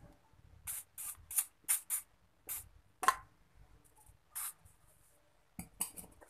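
WD-40 aerosol can sprayed in about eight short hissing bursts onto the rusty housing and motor shaft bearings of a water pump, penetrating oil to loosen rust before dismantling. A few sharp metal knocks follow near the end as the parts are handled.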